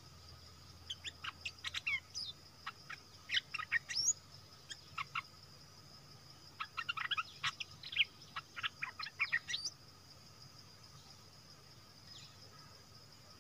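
A bulbul singing quick runs of short, sweeping chirping notes in two spells of a few seconds each, over a steady high insect drone.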